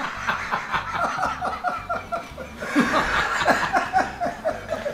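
Two men laughing hard, a quick run of ha-ha-ha.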